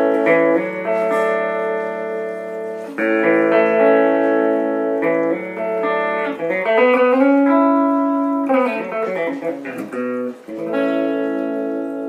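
Clean electric guitar (Alvarez Dana II, Triforce pickup with two coils wired in parallel) through a small 10-inch combo amp, strummed chords left to ring, with a passage in the middle where the pitch bends up, holds and comes back down. The tone is thinner and single-coil-like, a little nasal.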